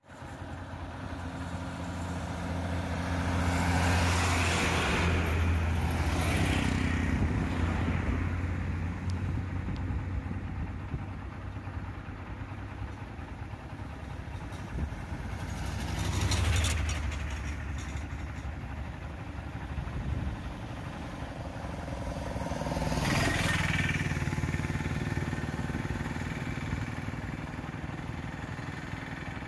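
Road traffic engines: a steady low engine hum, with vehicles passing close by and swelling loudest about four to eight seconds in, again around sixteen seconds and around twenty-three seconds.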